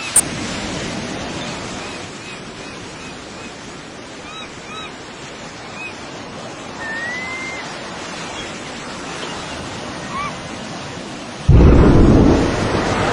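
Sea sound with wind on the microphone, with faint short chirps scattered through it. About eleven and a half seconds in, a sudden loud low rush starts and slowly dies away.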